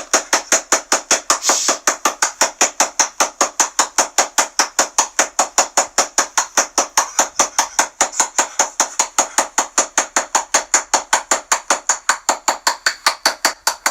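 Rapid, very regular tapping or knocking, about five or six sharp strikes a second, going on without a break.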